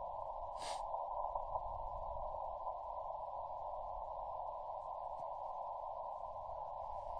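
Yaesu FT-891 receiver audio in CW mode: a steady band hiss squeezed into a narrow pitch range by the radio's CW filter, with no Morse signals coming through. There is a brief click about a second in.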